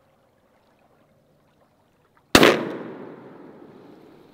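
One shotgun shot at a flying duck, about two and a half seconds in, its report dying away slowly over the next two seconds.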